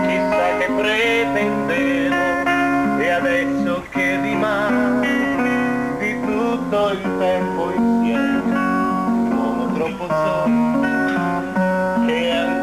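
Music with strummed acoustic guitar, its notes held and changing in a steady run with no pauses.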